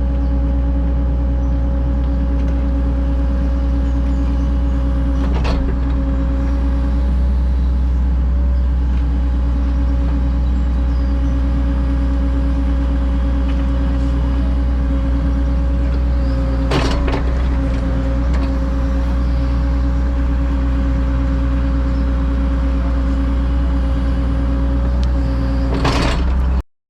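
Excavator's diesel engine running steadily under digging load, with a steady low hum and a held whine. Three sharp knocks come through it, about five seconds in, about two-thirds of the way in, and near the end.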